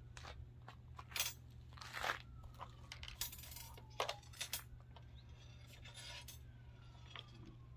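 Irregular clicks, light clanks and brief rustles of metal and plastic parts of a bike repair stand being handled and adjusted.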